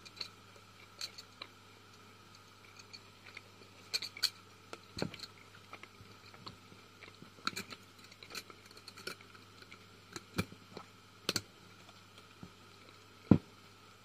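Scattered light clicks and knocks from hands handling a glass clip-top jar of licorice sweets and its wire clasp, with one louder knock near the end.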